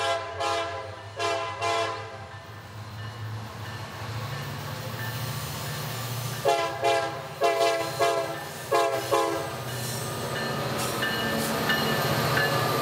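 Diesel freight locomotive's multi-chime air horn sounding a quick series of short blasts, then more short blasts in pairs about halfway through, over the low rumble of the locomotive's engine. Toward the end the rolling noise of the train passing builds up.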